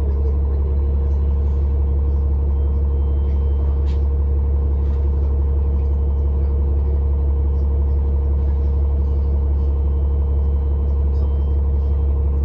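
City bus heard from inside the passenger cabin: the engine runs with a steady low drone that stays even throughout, with a few faint clicks, one about four seconds in.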